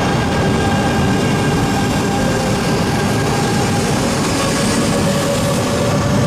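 JR East E926 East-i shinkansen inspection train pulling out along the platform. Its motors whine in a few steady tones over the rumble of the running gear, and about four seconds in a new tone comes in and slowly rises as the train picks up speed.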